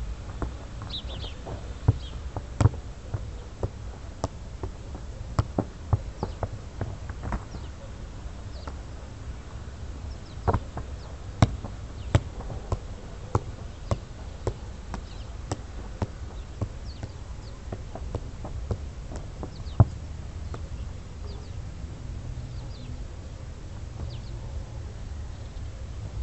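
A football being juggled: sharp thumps of the ball against the player's feet and body, irregular, about one or two touches a second, stopping after about twenty seconds.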